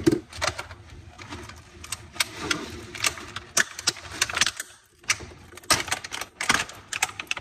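Kitchen clatter: a bowl knocked down onto the counter with a brief ring, then a run of irregular clicks and knocks of dishes and kitchen items being handled, with a short pause about five seconds in.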